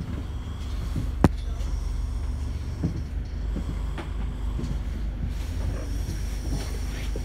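Bus engine idling with a steady low rumble, heard from inside the top deck, with a few light rattles and knocks from the bodywork and one sharp click about a second in.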